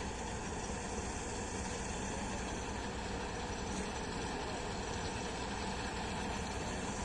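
Combine harvester running steadily, a dense, even machine noise with a steady hum and no change throughout.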